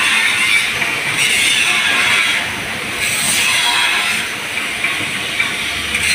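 Angle grinder grinding down a pipe ahead of welding, a harsh hiss that eases off briefly twice.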